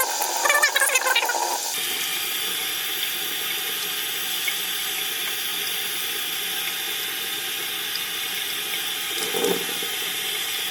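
Tap water running steadily into a sink, starting about two seconds in, as the tankless water heater's pre-filter is rinsed of calcium deposits.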